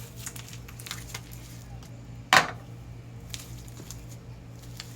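Hands kneading and squishing a melted slime that has just been sprayed with activator, making many small sticky clicks and ticks. About two and a half seconds in there is one loud, sharp crack.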